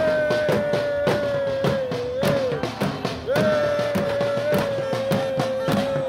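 Hand-beaten street drums, a snare and a bass drum, pounding a steady fast rhythm of about three to four strikes a second, with a long held high note over them that breaks off briefly halfway through and comes back.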